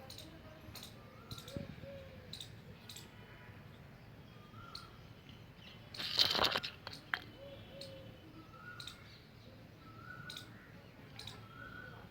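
Baby parrot giving short, soft, repeated chirps every second or two, with scattered sharp clicks. About six seconds in there is one louder harsh, rasping burst.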